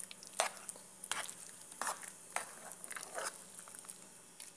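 Spoon stirring and folding a thick, creamy mashed-potato filling in a pan, giving a few faint, soft squelching clicks, roughly one every half second to second.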